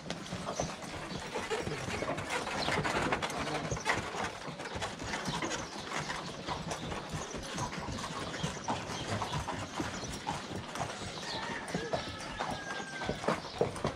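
Horses' hooves clip-clopping in a dense, uneven patter of sharp clicks, more than one horse moving at once.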